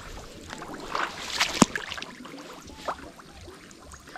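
Footsteps sloshing through thick mud, in irregular wet bursts, with one sharp click about one and a half seconds in.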